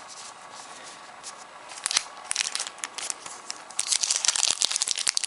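Plastic wrapper of a Yu-Gi-Oh booster pack crinkling and being torn open. Scattered crackles turn into dense, louder crinkling about four seconds in.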